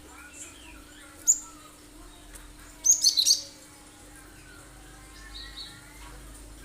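Cinereous tit (gelatik batu) calling in sharp, piercing high notes: a single call about a second in, then a quick burst of several about three seconds in. Faint bird chatter and a steady low hum sit underneath.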